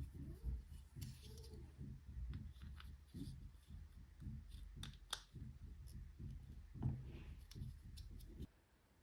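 Irregular plastic clicks and handling noise from keycaps being worked on an Amiga keyboard, stopping abruptly near the end.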